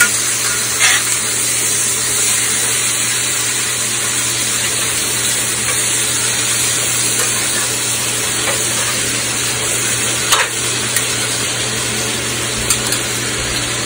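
Ribeye steaks sizzling steadily in butter in cast iron skillets, a constant frying hiss, with two brief clicks: one about a second in and one near the end.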